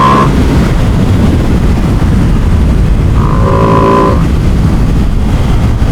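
Ducati Panigale sportbike engine and exhaust running at steady low revs while riding, a continuous low rumble with a faint brief tone rising out of it about three seconds in.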